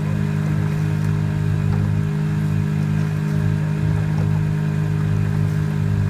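Outboard motor of a coaching launch running at a steady cruising speed, a low, even engine drone.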